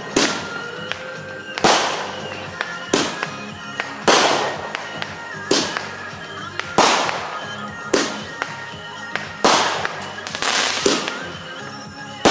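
Consumer aerial fireworks firing in steady succession: about nine loud bangs, roughly one every second and a quarter, each followed by a short crackling tail.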